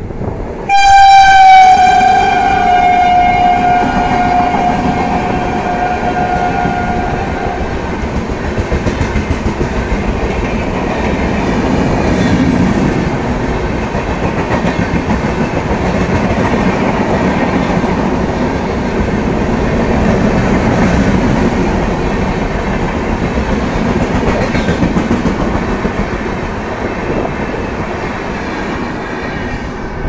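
WAP7 electric locomotive's horn sounding one long blast of about seven seconds, its pitch sagging slightly, as the express comes through at full speed. Then the steady rumble and clickety-clack of the passenger coaches rushing past.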